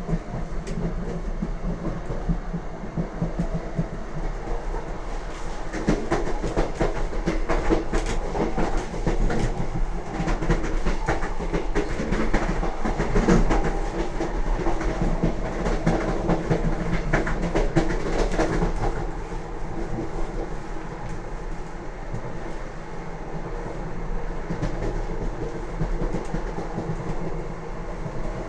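Wheels of a Lastochka (Siemens Desiro RUS) electric train clattering over rail joints at speed, over a steady rumble of running noise. The clatter grows louder about six seconds in and eases off again shortly before twenty seconds.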